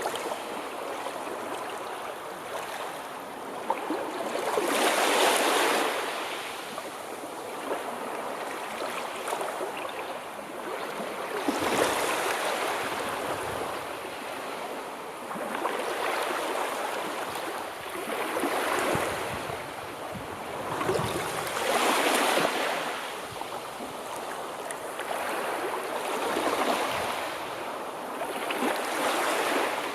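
Sea waves washing onto a shore, the surf swelling and falling back every few seconds.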